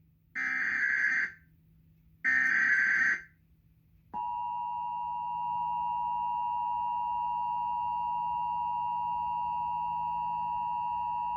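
Emergency Alert System header: two bursts of digital data tones, each about a second long, sounding as a harsh buzz. About four seconds in comes the EAS attention signal, a steady two-tone sound that holds without a break.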